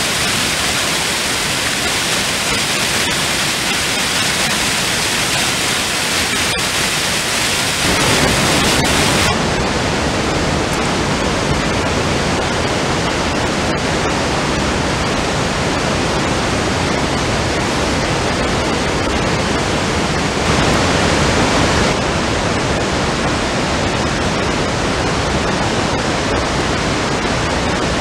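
Loud, steady rush of swollen storm floodwater, a dense unbroken hiss. About eight seconds in it becomes fuller and deeper.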